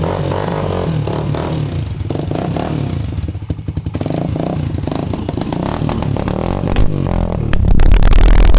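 Freshly rebuilt Honda 300EX ATV's air-cooled single-cylinder four-stroke engine running roughly on its first start-up. It stumbles briefly about halfway through, then gets louder near the end.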